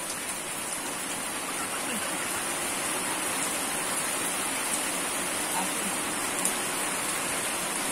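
Steady rushing water noise, with a small click a little after six seconds and faint voices underneath.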